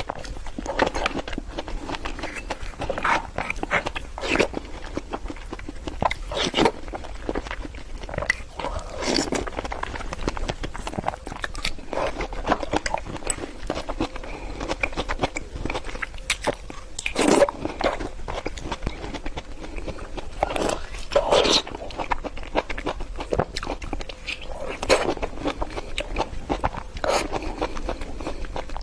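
Close-miked bites and chewing of fresh fruit: continuous crisp, wet crunching, with a louder bite every few seconds.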